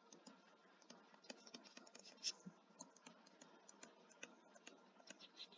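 Near silence with faint ticks and light scratching of a stylus writing by hand on a tablet screen, one tap a little louder a little past two seconds in.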